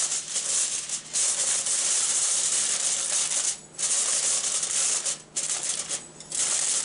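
Pot of water simmering on the stove: a steady bubbling hiss, broken by a few short gaps.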